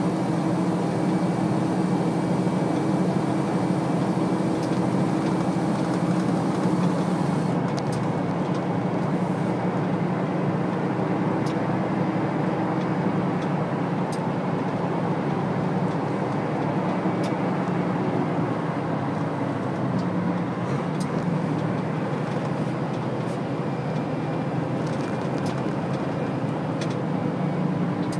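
Steady low engine drone and tyre-on-road noise heard from inside a large road vehicle driving at speed, with occasional faint clicks.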